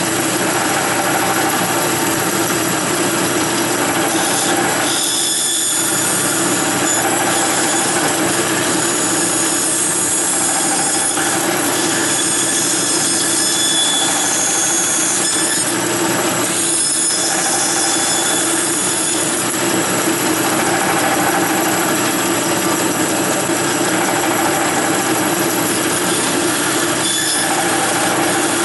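Bandsaw with a half-inch blade running and cutting through a small wooden block, a steady machine hum under the rasp of the cut. The cutting noise eases briefly twice, about five seconds in and again around seventeen seconds, as the piece is turned.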